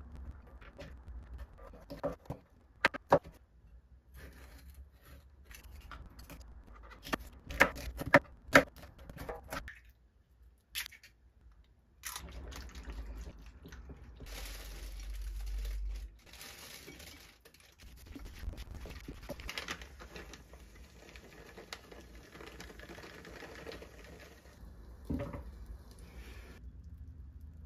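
Home cooking sounds: a kitchen knife chopping sausage on a plastic cutting board in irregular sharp taps for about ten seconds. After a short pause, chopsticks beat eggs against a ceramic bowl with a steady scraping, and this gives way to the hiss of the egg mixture frying under a glass lid.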